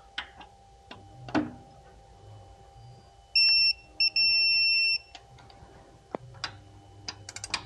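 Digital torque wrench beeping to signal that the set torque has been reached: a short beep, a quick blip and a longer beep about three and a half seconds in, with light clicks and taps of the tool on the bolts around them.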